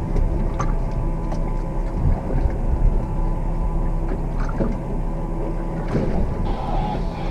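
Yamaha 250 outboard idling steadily under a low rumble of wind and water, with a few light clicks and knocks from the deck.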